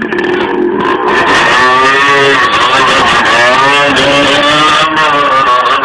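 Motorcycle engine revving hard, its pitch rising and falling again and again.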